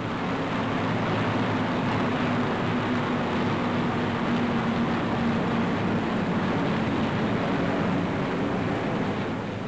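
Steady drone of a light propeller aircraft's engine in flight. Its low hum sinks a little in pitch past the middle and fades slightly near the end.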